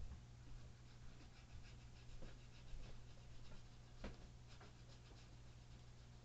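Near silence: room tone with a low steady hum and faint scattered ticks and soft rustles.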